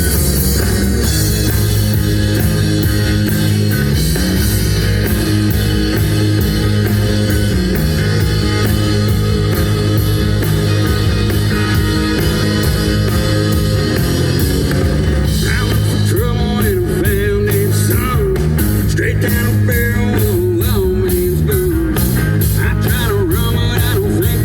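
Rock band playing with electric guitar, bass and a steady drum beat; a singer comes in about two-thirds of the way through.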